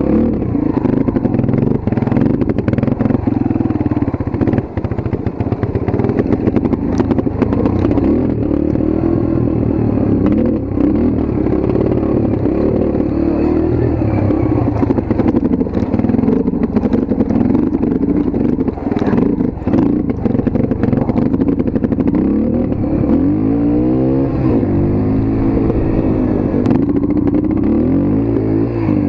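Dirt bike engine running under way, with frequent rattling clatter. In the last few seconds it revs up and down several times.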